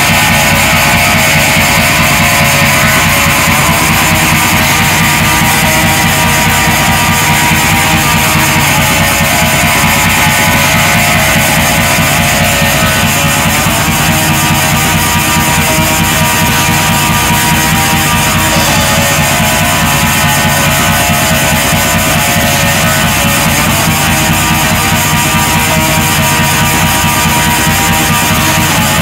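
Black metal: loud, dense distorted electric guitars and drums in a continuous wall of sound.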